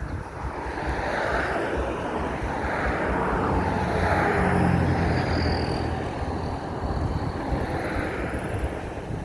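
A motor vehicle passing by on the road, its engine and tyre noise swelling to its loudest about halfway through and then fading away.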